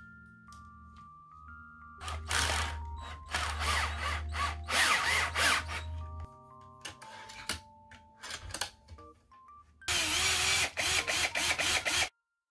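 Cordless drill running in bursts, driving screws through a metal folding bracket into a pine board, then a longer run near the end as it drills into the wood. Soft glockenspiel-like background music plays under it.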